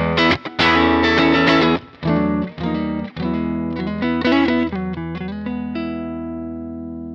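Electric guitar played through a TC Electronic Impulse IR loader with a speaker-cabinet impulse response. It plays choppy strummed chords with short stops, then a run of changing notes, and ends on a chord left ringing and slowly fading.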